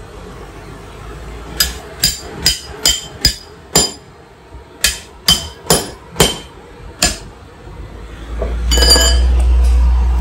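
A cutlass chopping frozen meat on a wooden chopping block: about a dozen sharp chops in quick runs, each with a short metallic ring from the blade. A loud low rumble builds up about eight seconds in and runs to the end.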